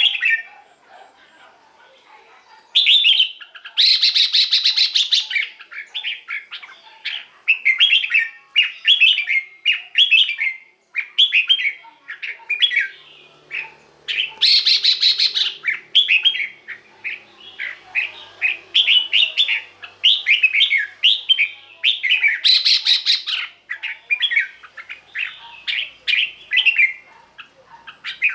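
Red-whiskered bulbul singing, a string of short, quick warbled phrases repeated with brief gaps. Three times, a louder harsh, rasping call breaks in among the phrases.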